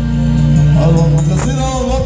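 Live norteño band playing: accordion over bajo sexto, electric bass and drums. Held low notes give way about a second in to a wavering melody line.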